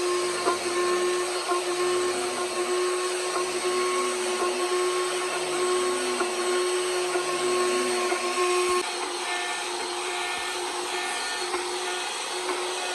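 High-speed electric carving tool running with a steady whine over a hiss. About nine seconds in the whine cuts off and a slightly quieter, rougher running sound carries on.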